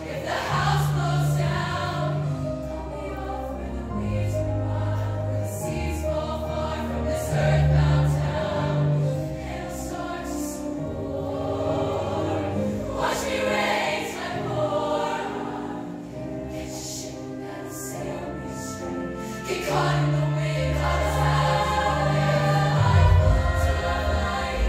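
A show choir singing in harmony with its live backing band, over held bass notes that change every second or two.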